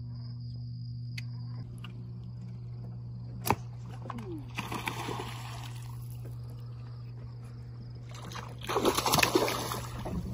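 Water splashing as fish thrash at the surface: a short splash about four and a half seconds in and a louder burst of splashing around nine seconds, where an arrowed fish churns the water. A sharp click comes just before the first splash, and a steady low hum runs underneath, with insects chirping in the first two seconds.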